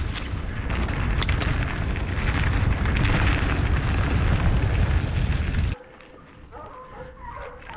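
Wind buffeting a helmet-mounted camera's microphone and the rumble and rattle of a mountain bike riding fast over a dirt singletrack, with a few sharp knocks from bumps early on. About six seconds in the noise cuts off suddenly, leaving a much quieter background with a few faint short chirping tones.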